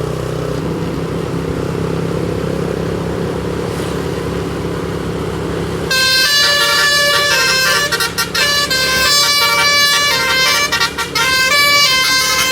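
Telolet basuri musical air horn on a tour bus, starting about halfway in and playing a loud multi-note tune that steps from pitch to pitch, with a couple of short breaks. Before it, a steady low engine rumble.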